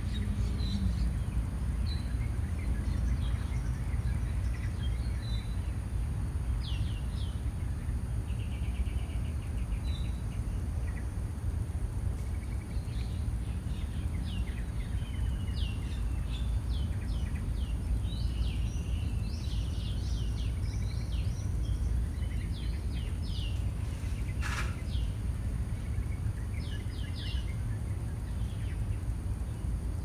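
Small songbirds chirping: many short, quick high calls, busiest in the second half, with one brief rapid trill a third of the way in. Under them runs a steady low rumble of background noise, and one sharp click comes late on.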